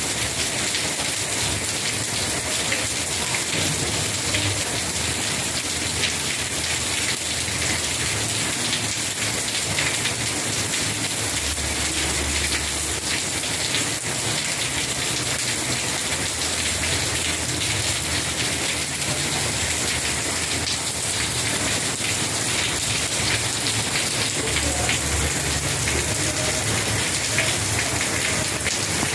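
Steady rain falling, a dense hiss of raindrops striking surfaces, with fine individual drop ticks throughout.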